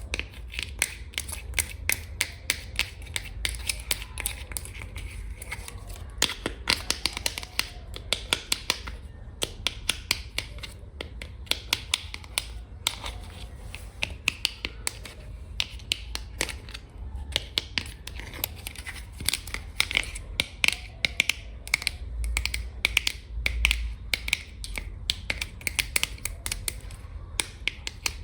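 Long fingernails tapping quickly on hard containers: many sharp, crisp clicks a second in an uneven rhythm.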